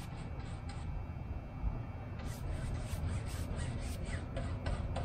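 A brush being worked against aircraft covering fabric over plywood, pressing glue down through the weave. It makes a series of short strokes, most of them in the second half, over a steady low hum.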